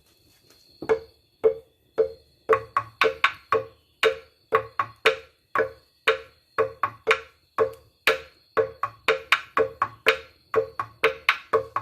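A carved cedar slit-drum xylophone (a replica of the Retes 'tambor xilófono') being struck over and over in an uneven, lively rhythm, each stroke a short wooden knock ringing at mostly the same pitch.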